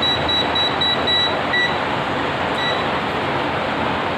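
A clamp meter's non-contact voltage detector beeping rapidly as it senses the electric field of a live AC wire; the beeps thin out and stop about a second in, with two single beeps after, over a steady hiss.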